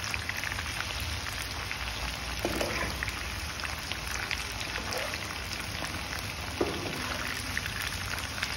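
Chicken pakoda pieces frying in hot mustard oil in a pan, a steady crackling sizzle. A metal utensil knocks against the pan twice as the pieces are turned, about two and a half seconds in and again near seven seconds.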